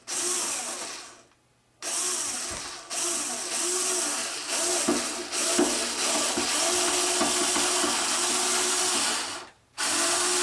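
Cordless electric screwdriver motor whining as it drives a screw into a model airplane's fuselage. It runs in starts and stops: a short run, a pause, a long run of several seconds with brief dips, then another start near the end.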